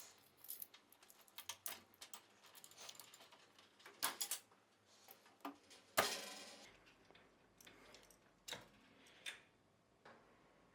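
Faint scattered clicks and taps, loudest about four and six seconds in: wire spade connectors being pulled off the terminals of an oven function selector switch.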